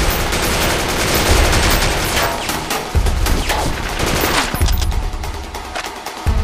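Rapid automatic gunfire sound effects, shots following each other so fast they run into a continuous volley, with deep thuds about three seconds in, again a second and a half later and near the end. Music plays underneath.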